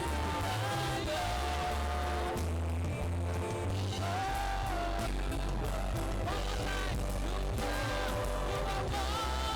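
Live worship music: a singer's voice holding a melody over a band with a steady bass line.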